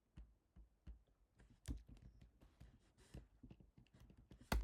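Typing on a computer keyboard: faint, irregular key clicks, with one louder click near the end.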